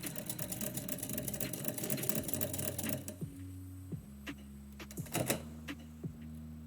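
Manual typewriter typing: a fast, dense run of key strikes for about three seconds, then slower, scattered single strikes.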